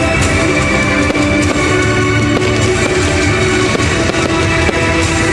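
Music playing steadily, with fireworks bursts popping and crackling beneath it.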